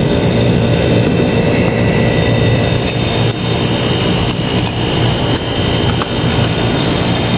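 Steady mechanical hum from a running machine, with a few faint clicks about three and five seconds in.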